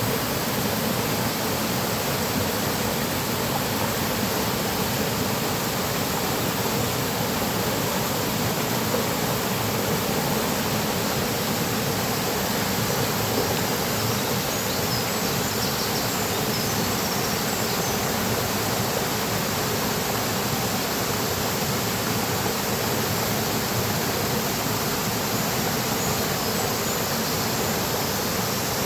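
Mountain stream rushing steadily over rocks, a constant full rush of water. Faint bird calls are mostly buried under it, a few chirps showing through about halfway and near the end.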